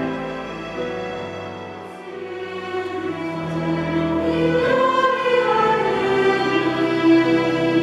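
Choir singing with double bass accompaniment. The music dips about two seconds in, then builds up again as the voices swell.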